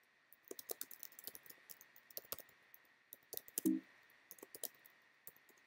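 Computer keyboard typing: quick, irregular key clicks that stop about a second before the end, with one louder, duller knock a little past the middle.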